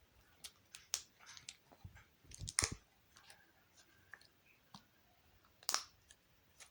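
Close-up chewing of soft jelly candy: scattered wet mouth clicks and smacks, with two louder smacks about two and a half seconds in and near six seconds.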